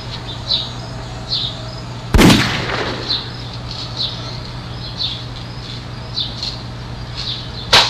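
BB gun fired: one loud, sharp bang about two seconds in with a short fading tail, then a second, shorter sharp crack near the end.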